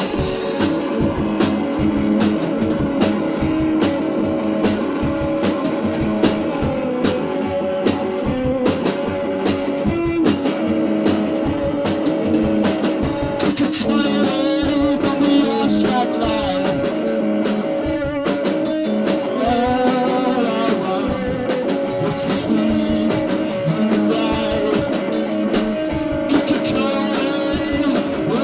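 A rock-blues band playing an instrumental passage with guitar and drum kit, with steady drum and cymbal strikes; the band is drastically out of tune.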